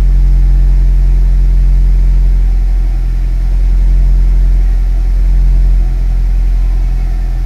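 Nissan Grand Livina's four-cylinder petrol engine idling steadily at a raised cold-start idle, heard from inside the cabin.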